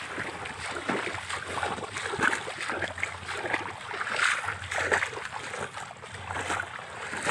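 Legs wading through shin-deep water in a flooded rice field: a sloshing splash with each stride, repeating about once or twice a second.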